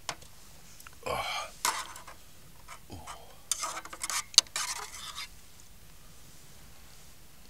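Eating utensils clinking and scraping against a dish in a few short bursts, with sharp clicks, the loudest about four seconds in.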